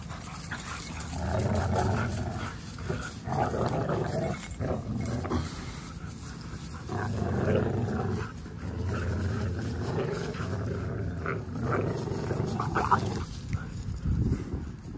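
Pit bulls growling in low, rough rumbles, one after another, while tugging against each other on a rope toy.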